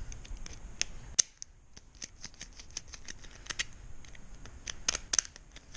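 Irregular light metallic clicks and scrapes of a key and lock cylinder being handled and tried, with one sharper click about a second in. The cylinder is gritty inside.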